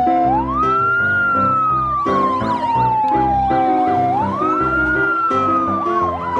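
Siren wailing over background piano music: a slow wail rises quickly and falls away twice, once just after the start and again past the middle, with a faster warbling siren sounding alongside it.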